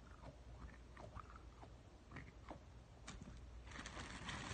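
Faint, soft squelching from a DNA squishy ball (a stress ball filled with water beads) being squeezed in the hand. Near the end a louder rustling starts.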